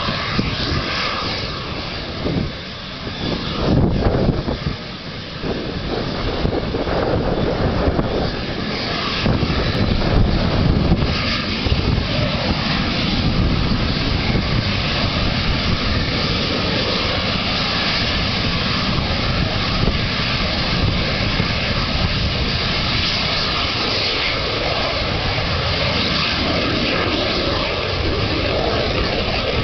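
BAC Jet Provost's single Armstrong Siddeley Viper turbojet running at takeoff power: a loud, steady jet roar with a high, even whine over it, as the trainer starts its takeoff run.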